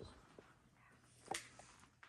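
Near silence with a few faint footsteps on a debris-strewn floor, and one sharper knock about 1.3 seconds in.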